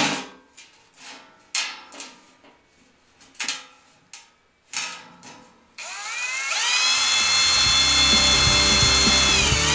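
A series of short, sharp ringing plinks. About six seconds in, a screw gun spins up and drives a self-drilling hex-head screw into 18-gauge galvanized sheet steel with a steady whine that dips slightly near the end.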